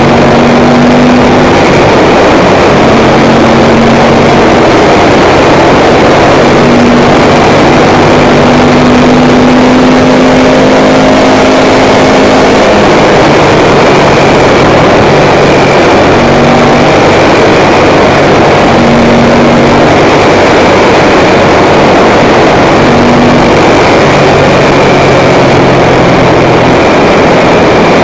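Ducati M900 Monster's air-cooled L-twin engine running under way, its low note stepping up and down in pitch several times, buried under heavy, steady wind noise on the microphone.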